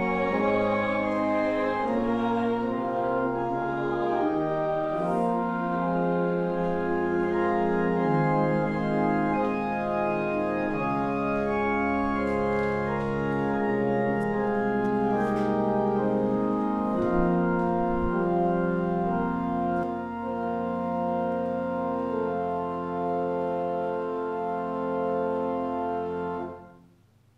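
Organ playing in slow sustained chords for the procession, the final chord cut off about a second before the end.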